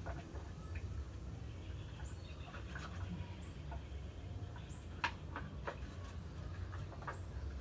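Scattered light clicks and taps, the sharpest about five seconds in. A faint short high bird chirp repeats about every second and a half over a low steady hum.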